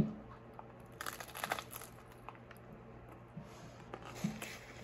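Eating a vegetable taco: crisp crunching and crinkling in a few short bursts, about a second in and again near the end.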